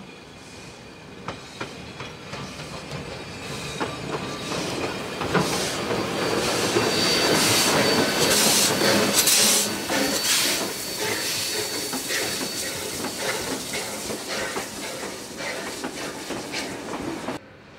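Steam-hauled heritage train passing close by, led by steam locomotive 3265, the NSW 32-class 4-6-0. It builds to its loudest about eight to ten seconds in, with a steady high hiss over it. The carriage wheels then click over the rail joints as the train rolls past, until the sound cuts off suddenly near the end.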